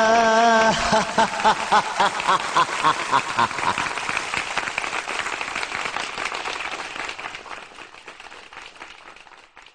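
A group clapping and applauding, breaking out as the birthday song's last held note ends just under a second in, then slowly dying away.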